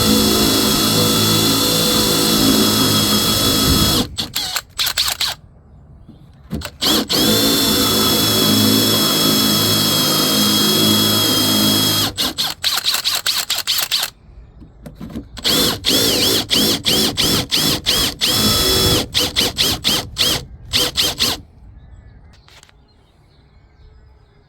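Power drill running a 35 mm Famag Bormax 2.0 Forstner bit for kitchen hinge cups. It runs steadily for about four seconds, stops, then starts again in long runs and quick on-off blips, and stops about three seconds before the end.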